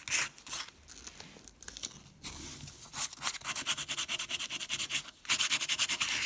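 Rough sandpaper rubbed quickly back and forth over a dried clay puppet head in rapid scratchy strokes, pausing briefly about five seconds in and then going on harder.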